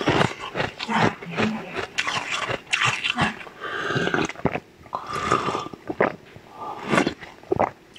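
Close-miked biting and crunching of a block of colored ice, with irregular sharp cracks and chewing mouth noises between pauses.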